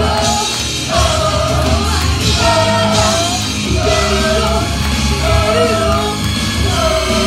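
Live vocalist singing and shouting into a microphone over loud, bass-heavy rock music through a club PA, with short sung phrases coming about once a second.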